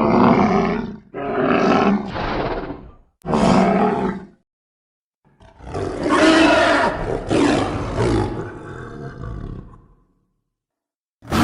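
Dinosaur roar sound effects for a Monoclonius: three short roars of a second or two each, then a longer one of about five seconds that fades away, each cut off by dead silence, with a fifth roar starting at the very end.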